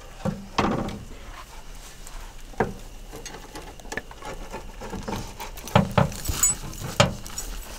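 Rolling pizza-wheel cutter cutting through a baked pizza crust on a wooden pizza peel, giving a series of short clicks and knocks, more often in the second half.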